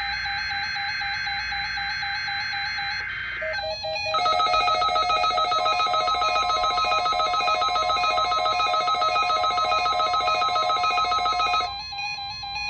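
NOAA Weather Radio alert tones for the weekly test, played again by a stuck broadcast system. First a steady warbling electronic tone, then about four seconds in a louder, rapidly pulsing alert tone that cuts off near the end.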